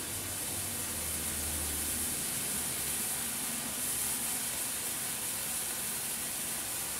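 Red Bengal flare burning with a steady hiss.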